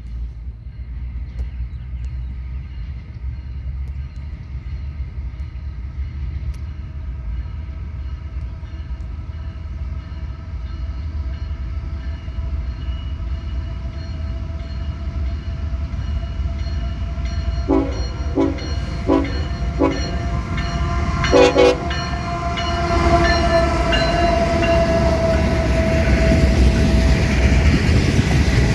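Diesel-hauled freight train approaching, its locomotive horn sounding with held tones over a low engine rumble that grows louder. A few short pulses and a sharp knock come about two-thirds of the way in.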